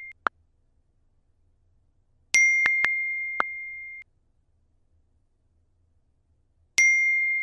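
Phone chat-message notification dings: two bright ringing chimes that fade out, one about a third of the way in and one near the end, with a few sharp short ticks around them. Near silence between them.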